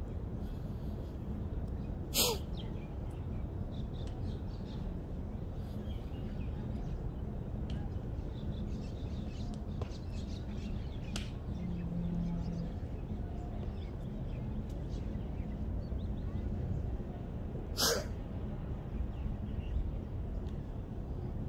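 Steady low rumble of wind on the microphone, broken twice by a short, sharp hissing burst: once about two seconds in and again about eighteen seconds in.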